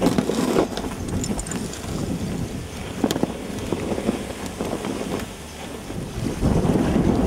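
Wind buffeting the microphone over river ice, with a few scattered knocks as the canoe and ice chunks shift against each other; the wind rush grows louder near the end.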